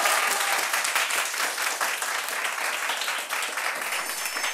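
A roomful of students applauding together, many quick hand claps overlapping in a steady patter.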